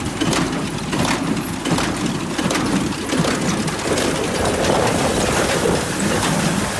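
John Deere 5310 tractor running a New Holland square baler: steady engine and machinery noise with repeated knocks from the baler at work.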